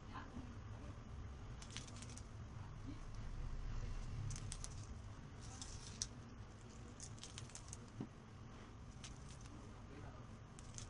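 Faint handling sounds of the cake being decorated and its cardboard cake board turned on the counter: light clicks and rustles over a low hum, with a sharper knock about six seconds in and another about eight seconds in.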